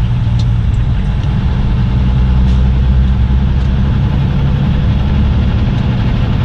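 Semi truck's diesel engine running steadily in slow, backed-up traffic, a loud low hum heard from inside the cab.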